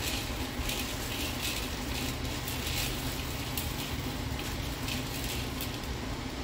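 Dry navy beans poured from a plastic bag into a plastic colander, a scatter of light clicks over a steady rushing noise.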